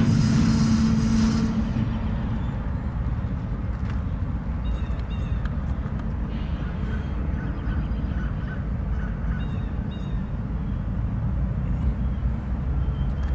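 A stack train's rolling noise dies away over the first two seconds as the train creeps to a stand. A steady low rumble is left, with short repeated bird calls over it.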